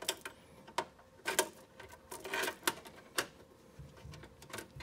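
Irregular sharp clicks and taps of hard plastic, with a couple of brief rubbing scrapes, as a plastic cover is pressed and snapped onto a motorcycle lower fairing with plastic push-button snaps.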